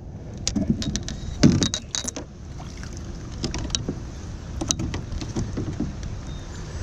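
Scattered clicks and knocks of gear being handled against a small fishing boat, the loudest about a second and a half in, over a steady low rumble.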